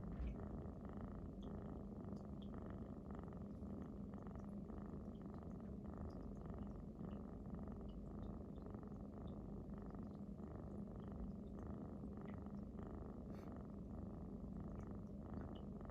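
Domestic cat purring steadily and close up, a low continuous rumble that pulses gently about twice a second as the cat breathes while lying asleep or resting.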